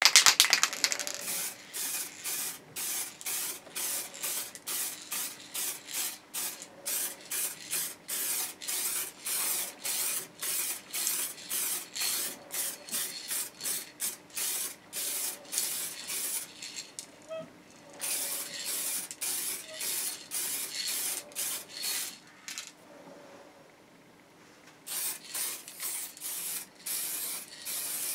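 Aerosol spray-paint can hissing in short, rapid bursts, about two a second, as coats of white paint go onto a guitar body. A pause of a couple of seconds comes near the end before the spraying resumes.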